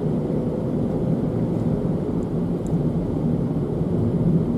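Car cabin noise while driving on a city road: a steady low rumble of engine and tyres, with the engine hum a little stronger near the end.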